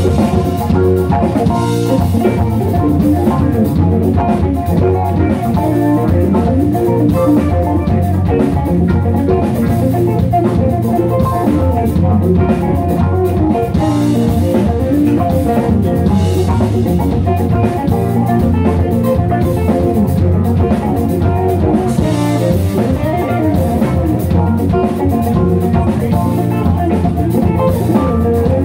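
Live band playing amplified music: electric guitar, electric bass and drum kit, with a keyboard player.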